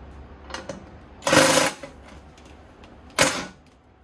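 Two short bursts from a power driver, the first about half a second long a little over a second in, the second briefly about three seconds in, as it tries to run the seat bolts into their holes.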